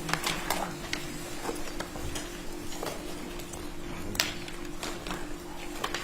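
Irregular sharp clicks and taps, one louder click about four seconds in, over a steady low hum.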